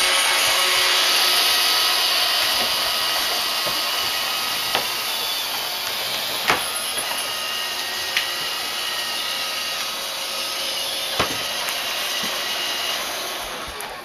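Vacuum cleaner running with a steady hissing whine that slowly gets a little quieter, broken by four short sharp clicks.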